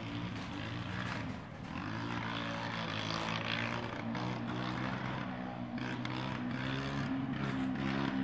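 Small off-road motorcycle engine running steadily, its pitch wavering up and down with the throttle.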